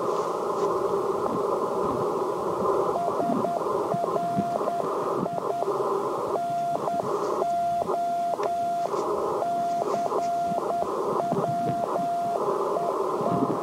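Morse code (CW) from an Icom IC-705 transceiver's speaker: steady receiver hiss, then from about three seconds in a single tone keyed in dots and dashes, the hiss dipping while the tone is on.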